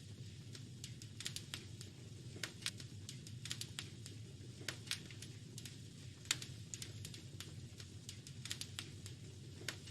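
Wood fire crackling in a fireplace: irregular sharp pops and snaps, the loudest about six seconds in, over a steady low rumble.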